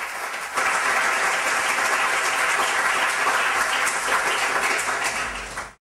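Audience applauding, a dense steady patter of clapping that swells about half a second in and stops abruptly near the end.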